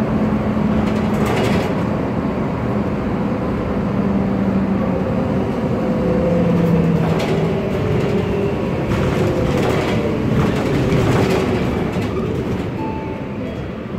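Cabin sound of a MAN Lion's Classic city bus under way. Its MAN E2876 CNG engine and drivetrain run with a whine from the differential that slides in pitch with speed. Loose interior parts rattle now and then.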